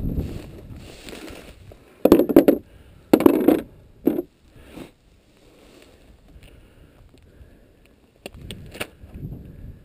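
Clinking, scraping handling noises in three short bursts about two, three and four seconds in, then a quieter stretch and a few more clicks near the end: gear being handled and packed up.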